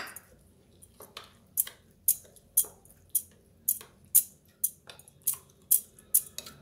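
Metal spoon clinking and scraping against a glass mixing bowl while stirring a wet mix of ground poha in tamarind water, with sharp clicks about two a second.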